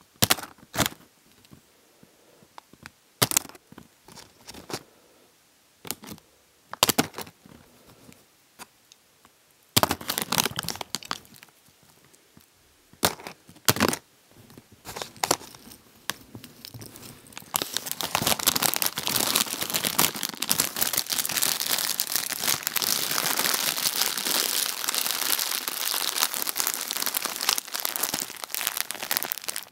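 Crinkly plastic pretzel bag being handled close to the microphone: short separate crackles at first, then from just past the halfway point a continuous dense crinkling of the bag.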